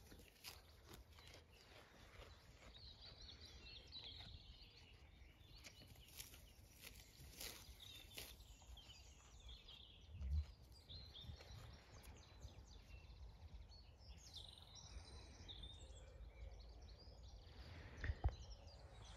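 Near silence with faint birdsong chirping in the background and a few faint soft clicks. A brief low thump comes about ten seconds in.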